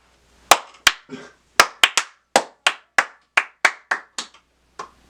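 A series of about a dozen sharp claps at an uneven pace, coming closer together in the middle.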